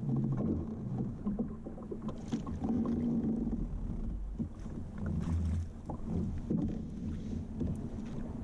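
Water slapping against the hull of a plastic fishing kayak, with wind rumbling on the microphone and scattered light knocks and rattles of gear being handled in the boat.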